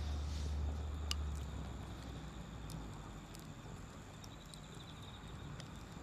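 Wood campfire crackling, with a few sharp pops, one loud pop about a second in, over a low rumble that fades out after the first second and a half.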